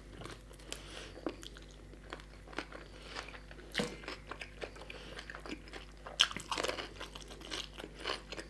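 Close-miked eating: a man chewing and biting chicken curry and puri, with irregular short mouth clicks throughout.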